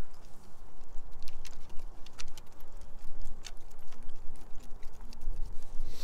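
Two Jindo dogs walking on a wooden boardwalk, their claws clicking irregularly on the planks, over a steady low rumble.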